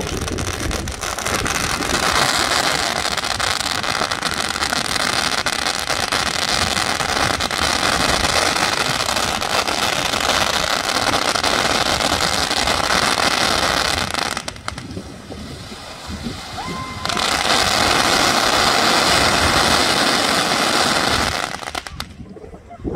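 Fireworks going off in a dense, continuous barrage of crackling pops. It eases off for a few seconds about two-thirds of the way through, then resumes and cuts off abruptly near the end.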